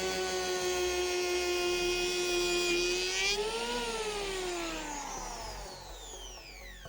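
Parkside PEH 30 E5 electric planer's 750 W motor running free with a steady high whine, then switched off a little over three seconds in, its pitch falling steadily as the motor and cutter drum spin down.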